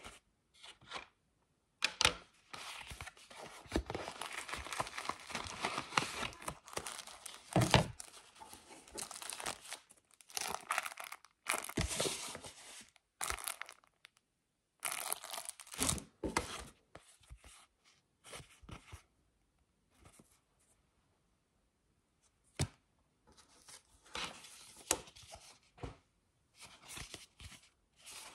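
Paper envelope and clear plastic wrapping rustling and crinkling in irregular bursts as a patch is handled and unwrapped, with a few sharp clicks and a lull about two-thirds of the way through.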